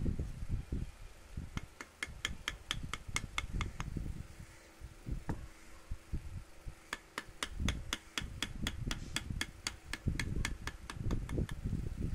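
Rapid light hammer taps on a chisel in woodcarving, about five taps a second. They come in two runs of a few seconds each, one after about a second and a half and one from about seven seconds in, with duller low knocks and thumps from the work in between.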